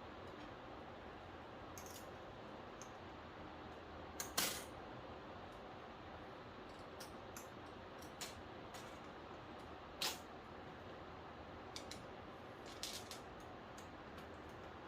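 Scattered light clicks and taps of small hard parts being handled during the repair, over a steady hiss. The loudest is a double tap about four seconds in, with another clear tap about ten seconds in.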